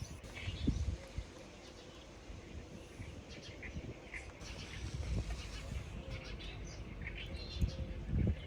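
Birds chirping outdoors in short, scattered calls, over a low rumble with a few soft knocks.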